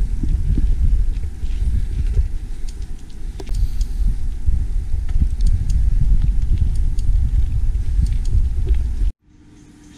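Wind buffeting a bike-mounted camera's microphone while riding, a loud unsteady low rumble with small rattling clicks from the bicycle on the road. It cuts off abruptly about nine seconds in, giving way to a much quieter scene with a faint steady hum.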